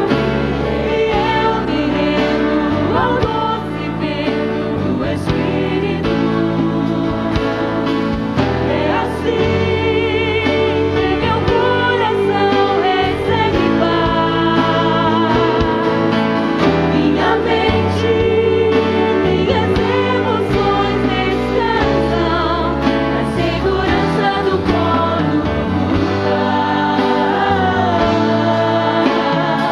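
Christian worship song with several voices singing Portuguese lyrics over a band accompaniment.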